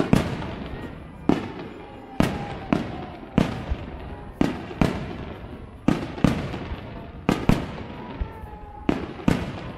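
Aerial firework shells bursting in a rapid barrage: a sharp boom every half-second to second, each trailing off in a rolling echo.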